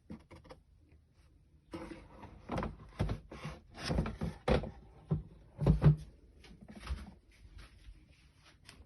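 The plastic globe of a Litter-Robot 4 being lifted out of its base: a run of irregular plastic knocks, scrapes and clunks, the loudest about six seconds in.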